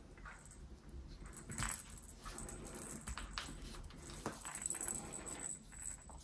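Faint handling sounds of hand-sewing a crocheted amigurumi piece: yarn pulled through the crochet stitches and the stuffed head turned in the hands, with scattered small clicks.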